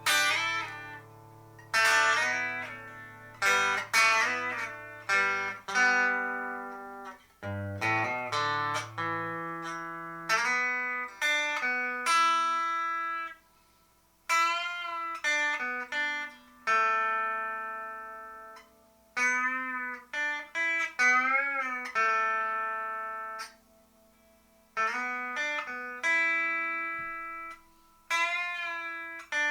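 Squier 40th Anniversary Telecaster on its bridge pickup, played clean with no reverb through a Sound City Master Lead 50 amp and 12-inch cabinet: picked single notes and short chords that ring and die away, some held notes with vibrato, with brief pauses between phrases.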